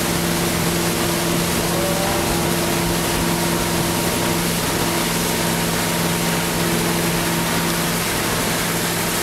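Tow boat's engine running at a steady cruising pace, its even hum under a constant rush of wind and churning water.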